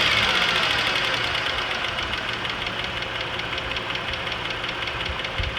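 Cadillac 3.6L LY7 V6 engine settling from a rev back down to idle, with a rapid, even ticking over the running engine. This tick began after a timing chain replacement and grows louder once the engine is hot.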